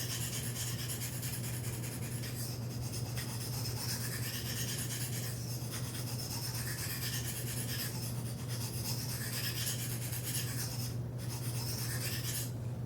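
Knife blade scraping in a series of strokes along the fine side of a diamond sharpening plate, grinding the second side of the edge to raise a burr.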